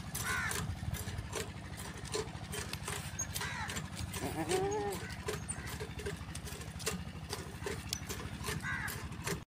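Goats bleating a few times, the loudest call about halfway through, over a steady low throb.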